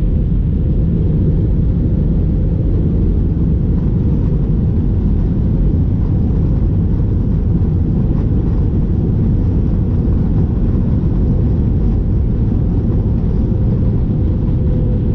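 Steady rumble of an Airbus A320's engines and airflow heard inside the cabin during descent, with a faint steady hum above the rumble.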